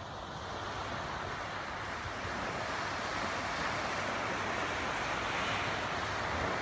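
Small sea waves washing in at the shoreline, a continuous rushing that grows louder over the first couple of seconds.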